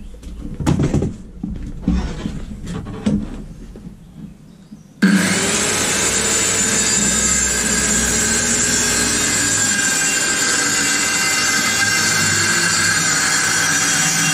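Knocks and clatter of handling, then about five seconds in a corded 1200 W Evolution 165 mm TCT multi-material circular saw starts abruptly and runs steadily under load. It is ripping a 1-inch strip off plywood against its fence.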